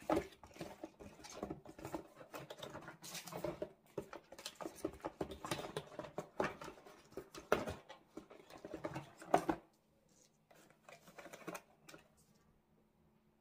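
Rustling, scratching and light tapping of things being handled, a busy run of small clicks that stops about nine and a half seconds in.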